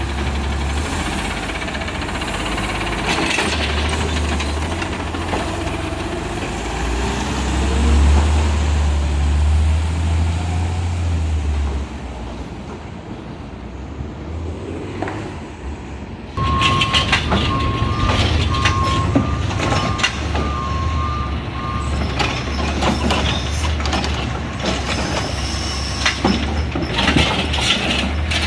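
Heil Rapid Rail side-loading garbage truck on an Autocar CNG chassis working, its engine running with a heavy low rumble that eases off about twelve seconds in. About sixteen seconds in it picks up loud again, with an on-off beeping alarm for several seconds and scattered clanks.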